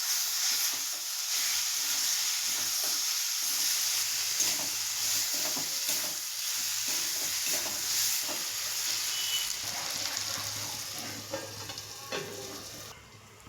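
Eggplant and fish fat frying in a pan, sizzling steadily while a spatula stirs and scrapes irregularly; the sizzle drops away suddenly near the end.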